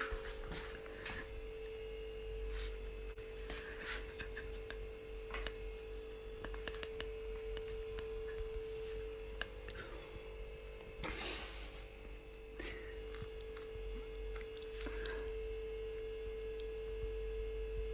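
A steady hum at one pitch, with scattered soft clicks and rustles and a short hiss about eleven seconds in.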